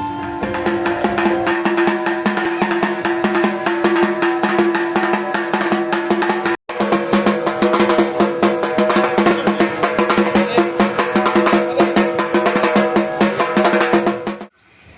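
Background music led by fast, dense drumming over a steady held drone. It breaks off for an instant a little past the middle and stops suddenly just before the end.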